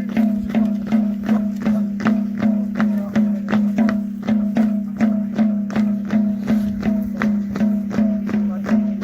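Traditional music with a steady low drone under quick, even sharp percussive strikes, about three a second.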